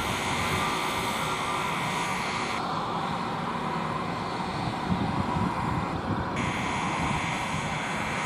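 Boeing 787-8 airliner's jet engines running at take-off power as it rolls, rotates and lifts off: a steady, even roar with a faint whine running through it.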